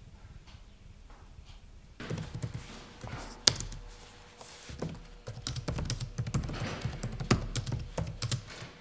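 Typing on an Acer laptop keyboard. Quick, irregular key clicks start about two seconds in, with one sharper keystroke soon after.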